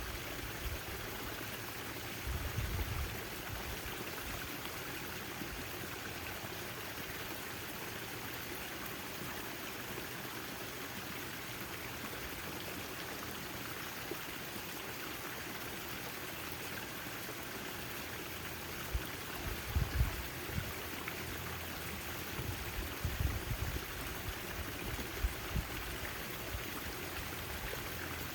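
Backyard fountain's water falling and splashing in a steady, even rush, with a few brief low bumps near the start and several more in the second half.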